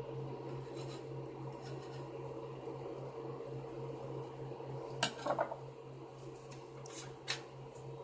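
A steady low machine hum with a slight regular pulse. About five seconds in comes a short clatter of hard objects knocking together, and near the end two sharp clicks.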